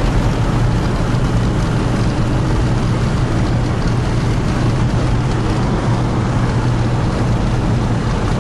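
Road vehicle driving at a steady speed: a constant rush of tyre and engine noise with a low hum.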